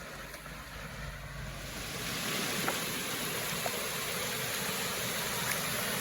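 Rushing water of a waterfall, a steady hiss that grows louder about two seconds in.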